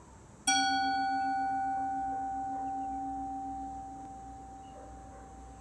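A singing bowl struck once about half a second in, ringing on with a low tone that wavers in a steady pulse and several higher tones above it, all fading slowly.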